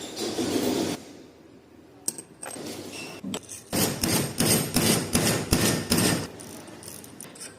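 Metal tool work on a bicycle freewheel: a short scraping burst, then a quick run of sharp metallic knocks, a few a second, from a little before the halfway point to near the end.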